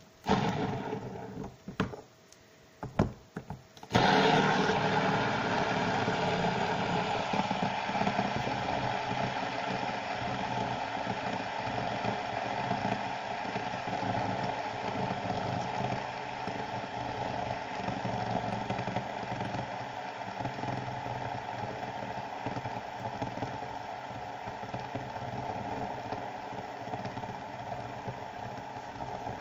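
Fidget spinner whirring as it spins balanced on a bottle top, a steady mechanical hum that slowly fades as the spin winds down. A few sharp knocks come in the first seconds, before it is set spinning about four seconds in.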